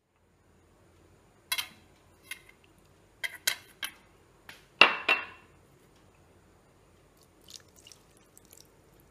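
Metal spoon clinking and scraping against a steel mixing bowl while stirring thick cake batter: a series of separate clinks with a short ring, the loudest about five seconds in, then a few fainter taps near the end.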